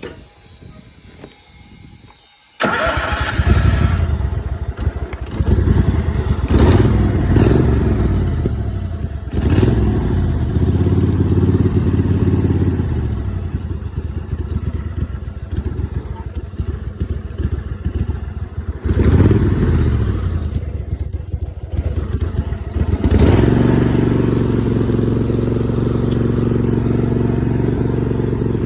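Kohler 22 hp V-twin engine of a Craftsman GT2002 garden tractor starting suddenly about two and a half seconds in, then revving up and down. It dips briefly and then settles into steady running near the end.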